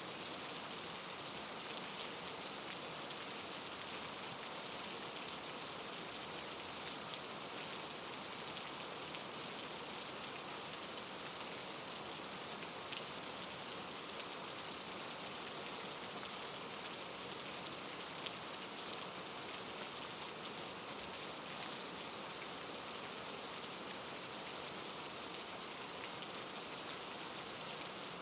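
Steady soft rain falling on a surface, an even hiss with faint scattered drop ticks.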